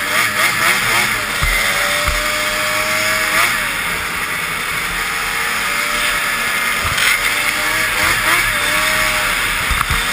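Arctic Cat racing snowmobile engine running hard at speed, its note wavering, dipping and rising again a few times as the throttle and load change, under a steady rush of wind past the machine.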